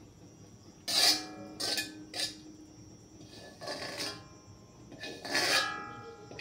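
Metal spatula scraping and knocking against a steel wok, in about five separate strokes, several of which leave the wok ringing briefly.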